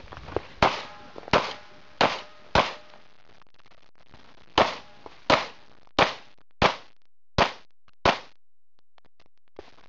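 A string of pistol shots: four quick shots about two-thirds of a second apart, a pause of about two seconds, then six more at the same pace.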